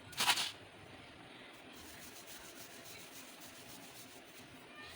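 Flatbread dough being rolled out with a rolling pin on a board: a short, loud scrape just after the start, then faint, steady rubbing.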